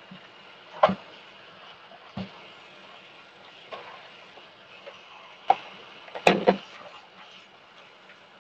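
Tap water running steadily into a stainless steel sink over water spinach being washed, with a few sharp knocks and clatters from the plastic colander and bowl being handled, the loudest a quick double clatter about six seconds in.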